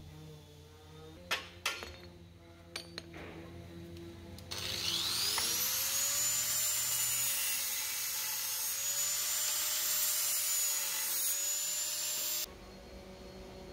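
Handheld electric angle grinder spinning up with a rising whine, then running steadily at full speed before cutting off abruptly. A few sharp knocks of metal being handled come before it starts.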